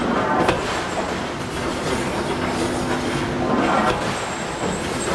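Forge shop machinery running with a steady hum and metallic clanking, with two ringing strikes of a hydraulic forging hammer: one about half a second in, the other near four seconds in.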